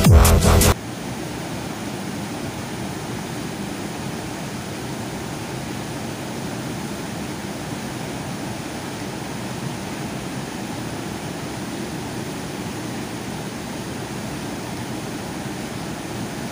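Electronic dance music cuts off under a second in, giving way to the steady rush of a fast river's whitewater rapids.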